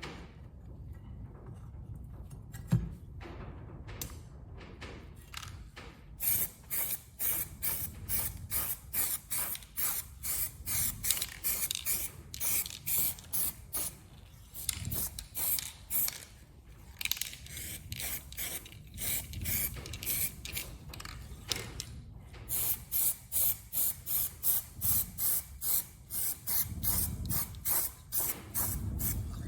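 Aerosol spray-paint can being sprayed in many short hissing bursts, about one or two a second, in runs with brief pauses between them, putting another coat of paint on metal light holders. Before the spraying starts there is a single sharp knock.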